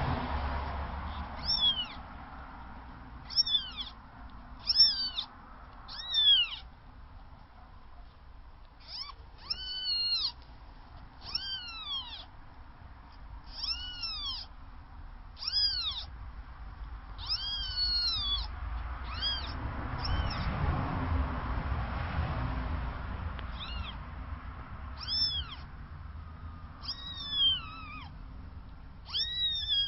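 Four-day-old newborn kittens mewing: a string of short, high-pitched cries, each rising and then falling in pitch, about one every second or two.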